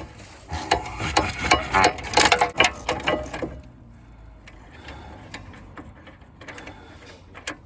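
Hand ratchet wrench clicking rapidly as a fastener is turned. The clicking is loud and dense for about three seconds, then carries on quieter and sparser.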